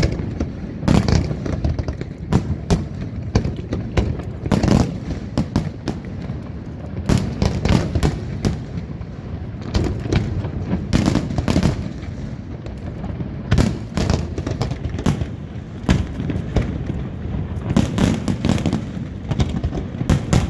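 Aerial fireworks going off in a rapid, irregular barrage of sharp bangs, coming in clusters several a second, over a continuous low rumble.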